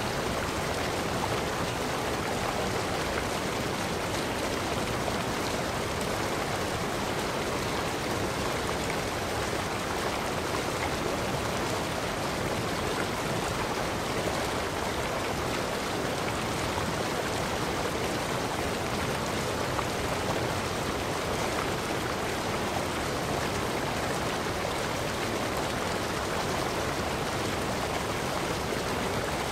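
Steady, unbroken rush of water, even in level throughout.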